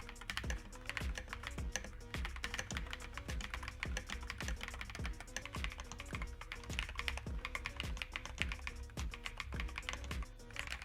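Fast, continuous typing on an Akko PC75B Plus Air mechanical keyboard fitted with Akko V3 Cream Yellow Pro switches and tape-modded, with quick irregular keystrokes throughout. Background music plays underneath.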